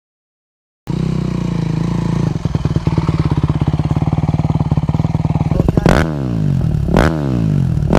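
A 250cc four-stroke motocross bike engine starts sounding about a second in, idling steadily, then is blipped twice near the end, the revs rising sharply and dropping back each time.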